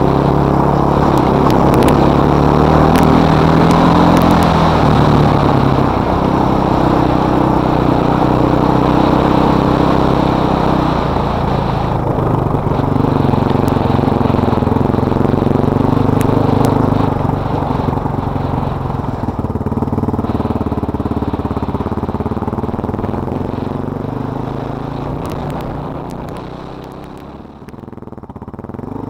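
Yamaha Raptor 660 quad's single-cylinder four-stroke engine running along a trail, its pitch rising and falling as the throttle is worked, heard through a poor helmet-cam microphone. The engine is new and being ridden gently to break it in. Near the end the throttle eases off and the engine quietens, then picks up again.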